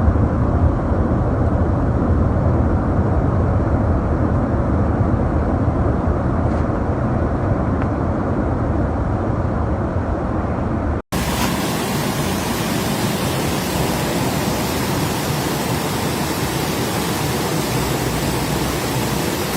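Steady, loud rushing noise, heaviest in the low end, like wind blasting a microphone. About eleven seconds in it cuts off abruptly and a different, brighter steady rushing hiss takes over.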